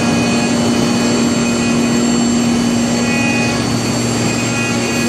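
Multi-head 4-axis wood CNC router running and carving wood: a steady mechanical hum with fainter high-pitched whines over a constant rush of cutting and machine noise.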